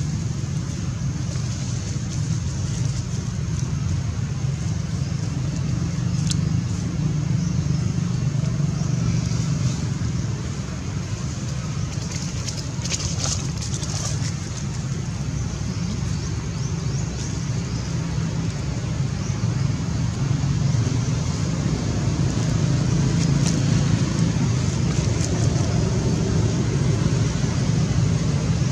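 Steady low rumble of outdoor background noise, like distant road traffic, with no distinct event standing out.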